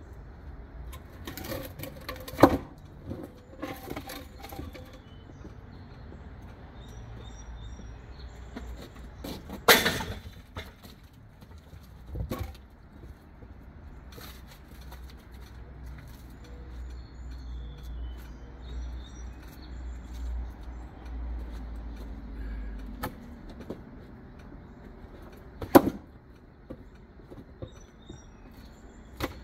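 Heavy wood knocking on wood: timber cribbing blocks and an apple log being set down and shifted, a handful of sharp knocks with quiet handling in between. A low rumble runs through the middle, and birds chirp faintly.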